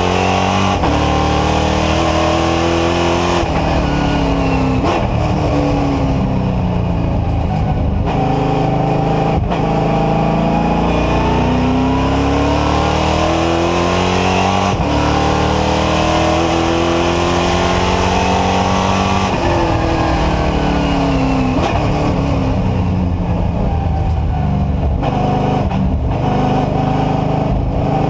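NASCAR Whelen Euro Series stock car's V8 engine heard from inside the cockpit at racing speed. The revs climb through the gears with a brief break at each upshift, then fall for a few seconds as the car brakes and downshifts about two-thirds of the way through.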